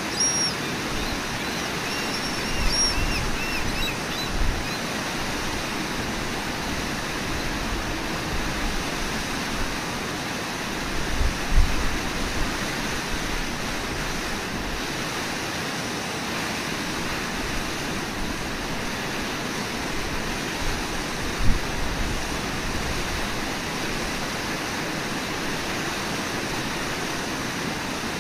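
Steady rush of whitewater pouring over a low waterfall and through rapids, with a few brief low thumps, the strongest about 11 and 21 seconds in.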